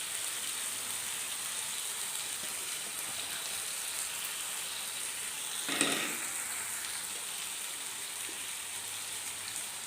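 Beef pieces in masala frying in a pan, a steady sizzle throughout, with a single short knock a little past halfway.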